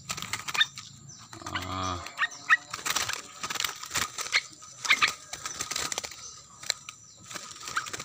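A small wild bird fluttering its wings as it is let go from a hand and flies off, with scattered rustling clicks and a few short high chirps. A brief low voice-like sound comes about one and a half seconds in.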